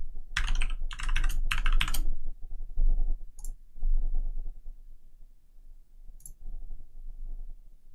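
Typing on a computer keyboard: a quick run of keystrokes for about two seconds, then only a few scattered, fainter clicks.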